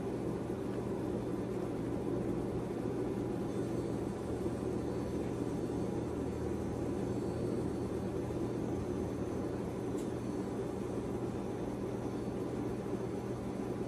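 Steady low hum with hiss, unchanging throughout, with one faint click about ten seconds in.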